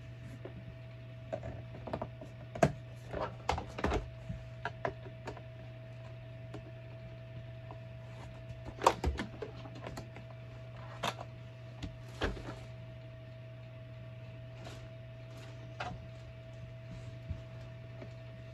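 Hard plastic parts of a Bissell PowerForce Helix upright vacuum clicking and knocking as its hose is pushed into place and handled during assembly: irregular short clicks, bunched in the first few seconds and again around the middle, over a steady low hum.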